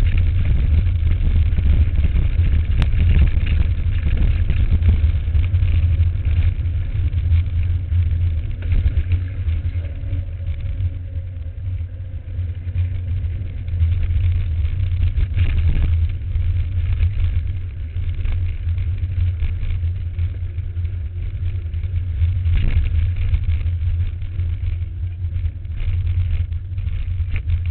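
Riding noise picked up by a camera on a mountain bike on a bumpy dirt trail: a loud, steady low rumble of wind and jostling on the microphone, with a few sharp knocks from jolts over the trail.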